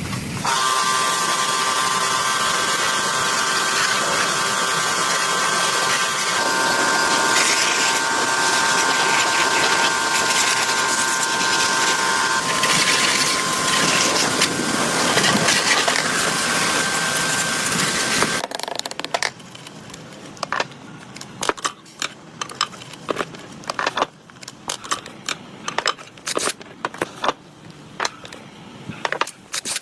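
A motor-driven power tool running steadily with a whine for about eighteen seconds, then cutting off, followed by light clicks and taps of handling parts.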